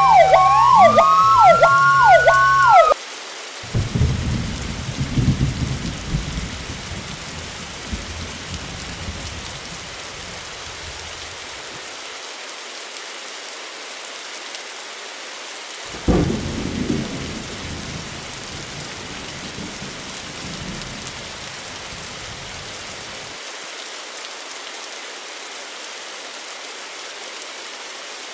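A fire engine's siren wailing with a horn sounding over it, cutting off abruptly about three seconds in. Then steady rain, with two long rolls of thunder: one just after the siren stops and another about halfway through.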